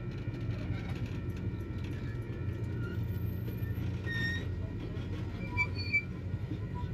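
Union Pacific passenger cars rolling steadily past on the track, a continuous low rumble of the wheels and trucks, with a few brief high squeaks between about five and six seconds in.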